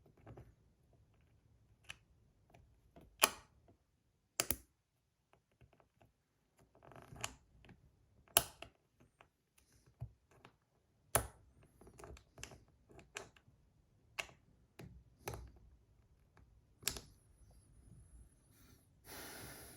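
Small hard plastic parts of a 3D-printed slider fidget clicking and knocking as they are handled and fitted together, a dozen or so sharp clicks at irregular intervals, with a brief rustle near the end.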